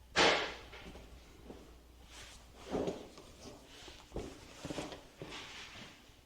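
Rummaging and handling noises in a small workshop: a short, loud rustle just after the start, then scattered softer knocks and rustles.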